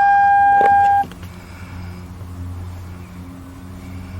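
A car's electronic warning tone sounds as one steady, unbroken note and cuts off abruptly about a second in. A quieter low hum is left behind.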